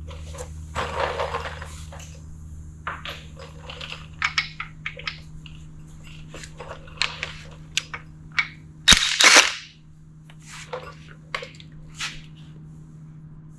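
Metal hand tools and engine parts clinking and knocking in a series of sharp, uneven clicks, with a louder clattering burst about nine seconds in, over a steady low hum.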